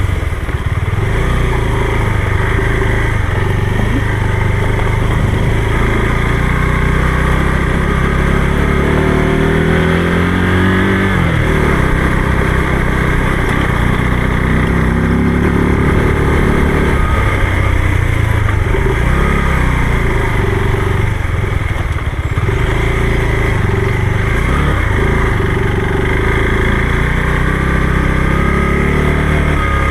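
Motorcycle engine running under way on a ride, its pitch rising and falling several times with throttle and gear changes.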